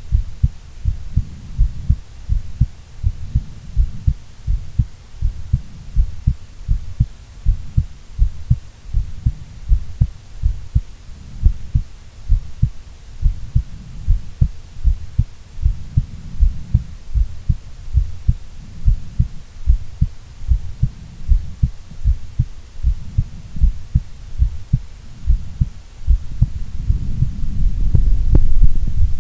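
A woman's heartbeat thumping in a steady lub-dub rhythm, deep and low. A low rumble swells up under the beats near the end.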